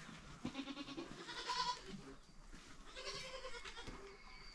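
Goats bleating: two calls, the first about half a second in, the second about three seconds in.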